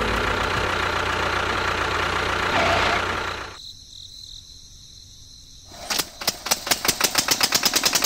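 A small motor running steadily, dropping away about three and a half seconds in. About two seconds later a rapid run of sharp knocks starts, about six a second.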